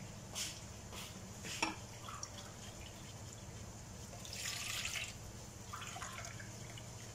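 Water bubbling and spattering in a hot pan of rice and toasted vermicelli. There are three short pops about half a second apart, then a louder burst of hissing around four and a half seconds in.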